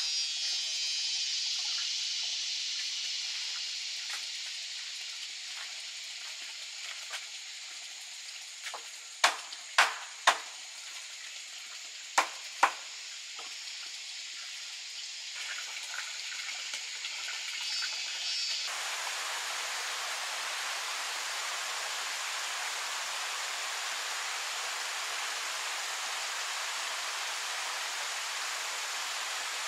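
Five sharp knocks on bamboo, three close together and then two more a couple of seconds later, over a high steady hiss. A little past halfway the sound changes suddenly to the steady rush of a rocky stream.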